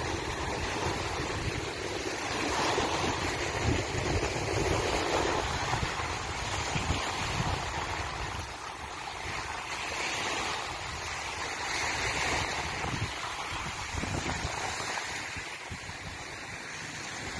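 Steady rush of wind and water, with wind buffeting the microphone in an uneven low rumble.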